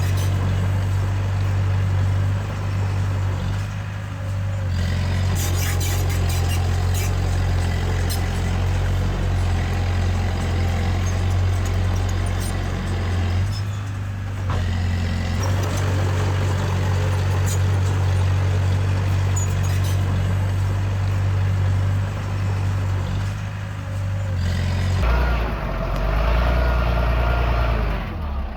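Heavy construction machinery's diesel engine running steadily. Its note dips briefly about every ten seconds and shifts to a different pitch near the end.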